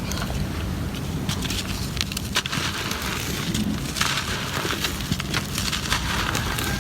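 Gritty cement crumbling and breaking apart, a dense run of small crackles and snaps over a steady low rumble.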